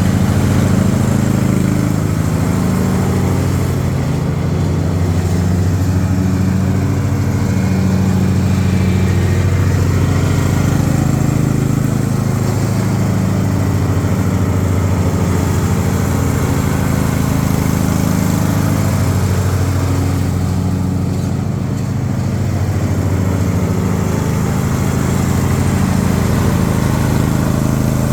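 Riding lawnmower engine running steadily, with slight dips in level about four seconds in and again near the twenty-second mark.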